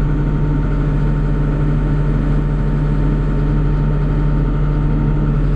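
Diesel engine of a CAT backhoe loader running steadily with a deep hum, heard from inside the cab while the backhoe arm is worked hydraulically from the joysticks.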